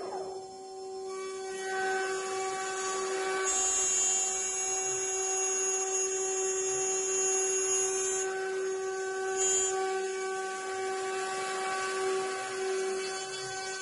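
Mini CNC router's two 800 W spindles running at steady speed, whining as the cutters mill into a wooden board. A higher-pitched whine joins from about three and a half to eight seconds in.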